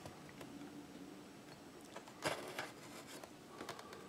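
Mostly quiet handling of a cardboard mouse box turned over in the hands, with a brief rub about two seconds in and a couple of fainter ones near the end.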